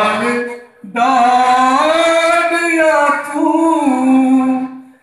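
A man singing a Punjabi song with no accompaniment, drawing out long notes. One note fades just under a second in; after a short breath a single long note wavers up and down and dies away near the end.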